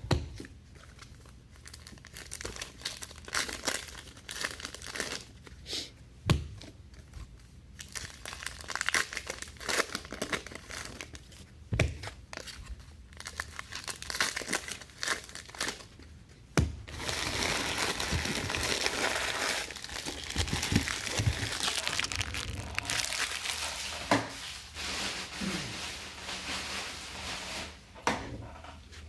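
Trading card pack wrappers being torn open and crinkled by hand, with irregular crackles and a longer, louder burst of crumpling about two thirds of the way through.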